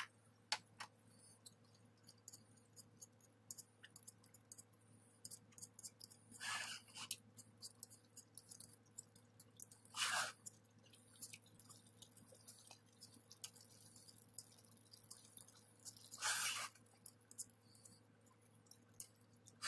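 A fork mashing whole peeled canned tomatoes in a stainless steel skillet: soft wet squishing with many light clicks of the fork against the pan, and three louder squelches, about six, ten and sixteen seconds in. A faint steady hum runs underneath.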